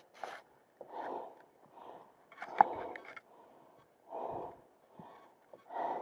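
A hiker breathing hard on a steep climb, with puffs of breath about once a second, and a sharp click of a footstep or gear now and then.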